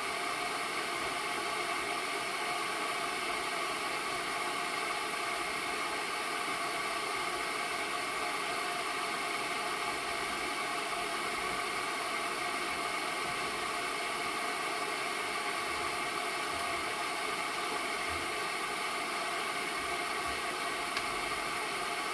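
Steady hiss of air escaping from a leak, continuous and unchanging in level.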